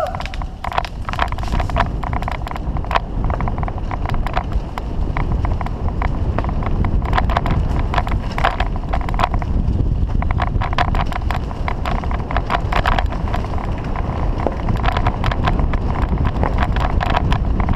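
Bicycle ridden fast over a rough dirt forest trail: steady wind rumble on the camera's microphone with frequent sharp rattles and clicks as the bike jolts over the ground.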